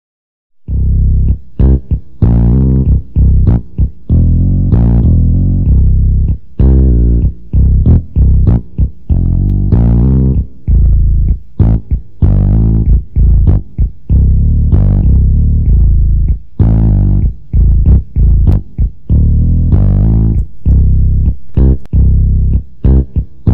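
Music led by a heavy plucked bass line with guitar, starting abruptly about half a second in and running in choppy phrases with frequent brief breaks.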